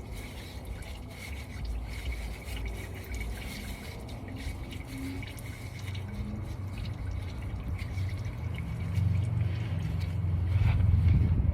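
Used engine oil dripping and trickling from the loosened oil filter of a 3.0 Duramax diesel into a drain pan. A low rumble grows louder near the end.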